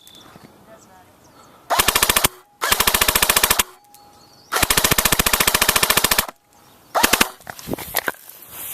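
Airsoft gun firing on full auto in four bursts of rapid clicks: a short one about two seconds in, a longer one just after, the longest around five seconds in, and a brief one near the end.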